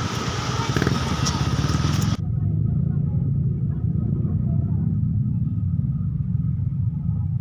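Steady low rumble of a vehicle on the move. About two seconds in, the higher sounds cut off abruptly and leave only the low rumble.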